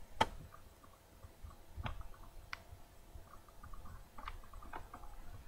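A few faint, sharp clicks spaced irregularly over a quiet room with a faint steady hum.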